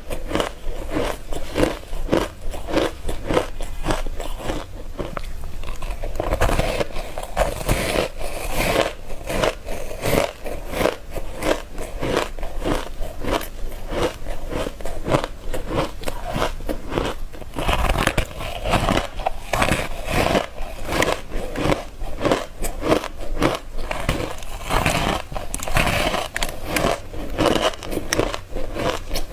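Ice being bitten and crunched close to the microphone: a rapid, continuous string of crisp crunches and crackles, several a second.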